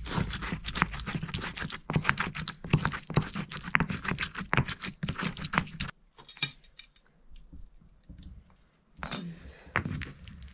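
Stone pestle grinding and pounding in a stone mortar: a fast, gritty run of clicks and scrapes for about six seconds. Then it stops, leaving a few soft taps and one sharper knock near the end.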